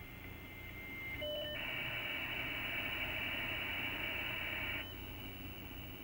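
Dial-up modem handshake over a phone line as a Windows 95 PC connects to the Microsoft Network: a steady high tone, a brief chord of tones a little over a second in, then a loud rushing hiss that drops to a quieter hiss near five seconds in.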